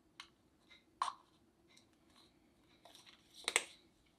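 Faint clicks and taps of a plastic acrylic paint bottle and a paper cup being handled as paint is squeezed into the cup. The loudest tap comes about a second in, and a short cluster of small knocks comes near the end.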